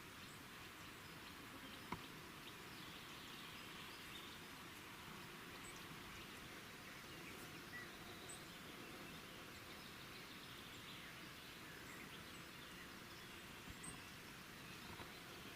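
Faint, steady background hiss with a few scattered faint, short high chirps from birds, and a single sharp click about two seconds in.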